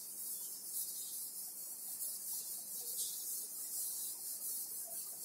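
A chalkboard duster being wiped over a blackboard to erase chalk writing: a steady scrubbing hiss that swells and fades with each stroke.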